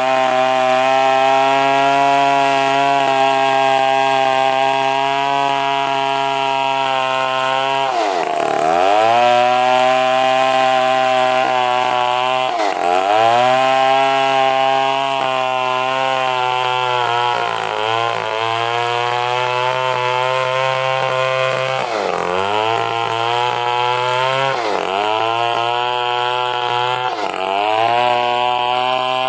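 Stihl chainsaw running at high revs while sawing an angsana log into planks. Its pitch dips sharply and recovers about six times.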